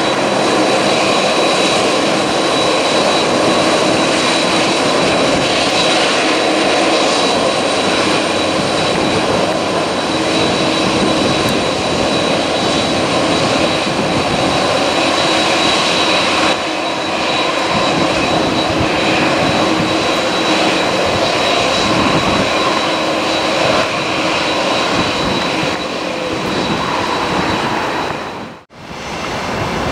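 Jet airliner engines running loud and steady, a wash of engine noise with a high whine through it. The sound drops out briefly just before the end.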